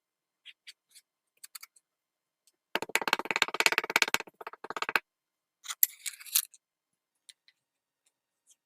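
Crunchy kinetic sand being cut, giving a dense crackling crunch of many fine rapid clicks for about two seconds near the middle, then a shorter crunch about a second later, with a few faint ticks around them.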